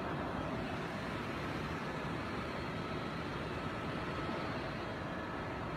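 Steady noise of a helicopter's engine and rotor heard from inside the cabin, with faint steady whining tones over it.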